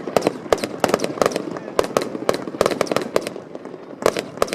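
Fireworks going off in quick, irregular succession: a string of sharp cracks and pops, several a second.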